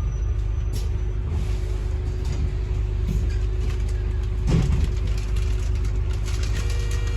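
Interior running noise of a Volvo B5LH hybrid double-decker bus on the move: a steady low rumble with a faint steady tone over it, and a single knock about four and a half seconds in.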